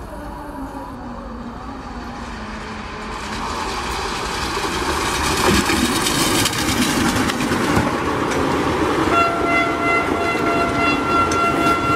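Indian Railways electric locomotive hauling passenger coaches past at speed: the train's rumble builds as it approaches and runs by. About three seconds from the end the horn gives one long steady blast, which cuts off suddenly.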